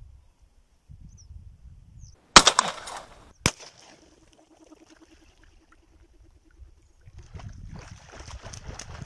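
Two loud shotgun shots about a second apart as ducks take off from the water, followed by splashing near the end.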